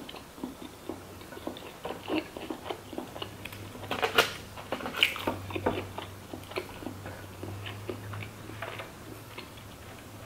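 Close-miked chewing of sushi rolls: wet mouth smacks and small clicks, with louder bites about four and five seconds in.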